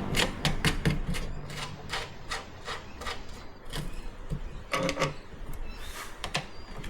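Irregular small clicks and knocks of hand tools and metal parts being handled while the fuel pump is fitted into the bottom of the motorcycle's fuel tank, with a slightly louder knock about five seconds in.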